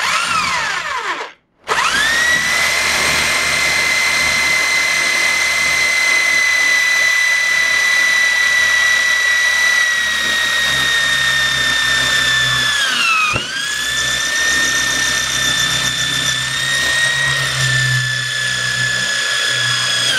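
Electric drill boring into a particleboard desktop: after a short spin-down and a moment's pause near the start, the motor runs with a steady high whine. Around thirteen seconds in its pitch sags and it briefly stops, then it starts again and runs on.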